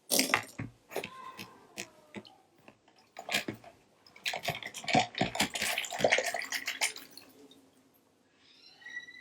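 Water sloshing and splashing in a bucket as small plastic controller parts are rinsed by hand, with light clicks and clatters of the plastic pieces. The splashing comes in bouts and is busiest from about four to seven seconds in.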